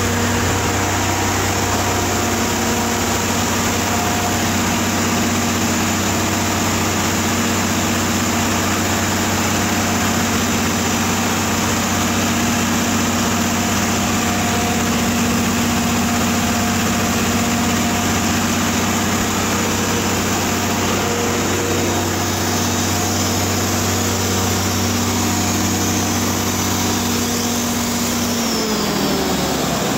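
Allis-Chalmers 3500 426 cubic-inch six-cylinder diesel engine running steadily on a bench test; near the end its pitch falls as it slows down.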